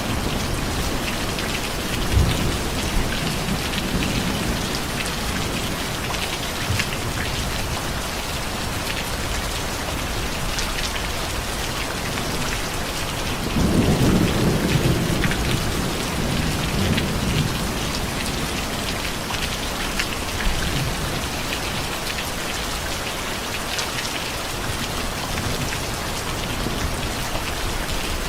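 Steady heavy rain falling, with a low rumble of thunder about halfway through.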